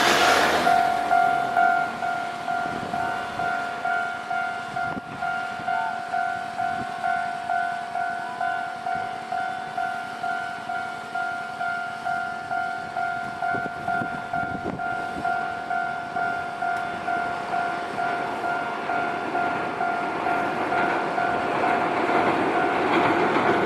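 Railway level-crossing warning bell ringing in steady, evenly repeated strikes on one pitch. A train's rumble fades out in the first second or two, and another train's noise builds up near the end.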